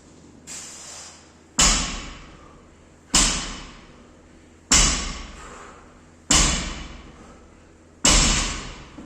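Gym equipment hitting the floor in a steady rep rhythm: five heavy thuds about a second and a half apart, each ringing on in the room, with a lighter knock just before the first.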